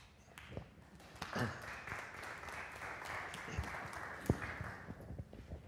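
Brief applause from a small congregation, starting about a second in and stopping after about three and a half seconds.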